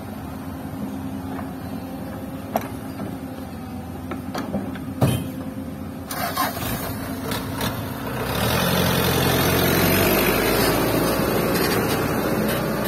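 Diesel engines running while a Hyundai excavator tips its bucket of soil into a dump truck, with a few sharp knocks from the bucket and falling earth. From about eight seconds in, the louder engine of the loaded dump truck takes over as it pulls away along the dirt track.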